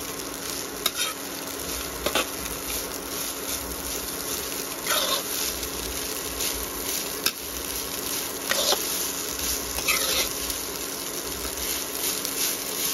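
A perforated steel spatula stirs poha with vegetables in a metal kadhai over a light frying sizzle. The spatula scrapes against the pan every second or two.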